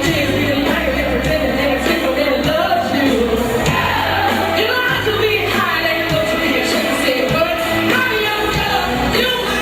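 Pop song with a sung lead vocal and a steady beat.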